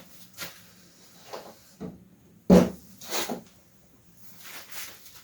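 A few knocks and clunks of handling at a wood stove as it is readied for lighting, the loudest a sharp knock about two and a half seconds in.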